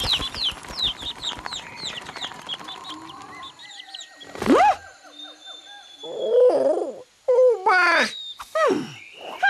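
Cartoon bird chirps, a quick run of high falling chirps about three or four a second, fading out after about three seconds. A loud swooping cry comes about halfway, followed by a string of pitched cartoon animal calls from the Marsupilami.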